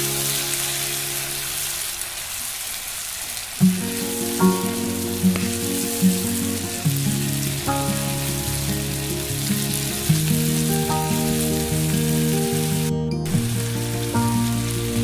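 Chopped onions and tomatoes sizzling as they fry in oil in a non-stick pan, a steady hiss. Background music with a steady beat plays over it, after a short break about two seconds in.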